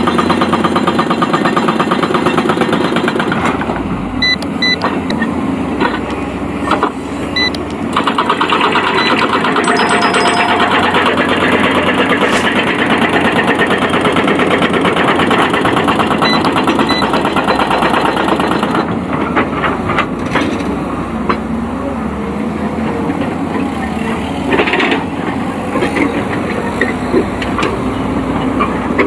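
Excavator's diesel engine running steadily at work, with a few sharp knocks and clanks in between.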